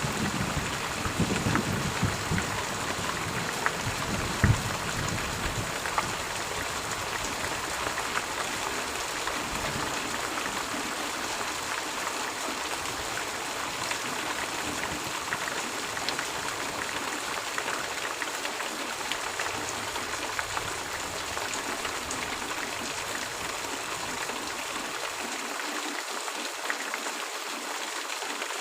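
Steady rain falling in an even hiss. A low rumble with a few knocks fades out over the first few seconds.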